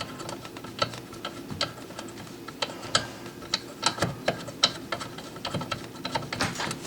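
Irregular sharp clicks, about one or two a second, as a dishwasher's threaded leveling leg is turned to lower the machine.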